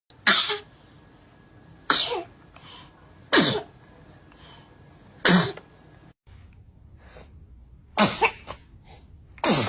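Babies sneezing: six short, sharp sneezes, roughly one every second and a half.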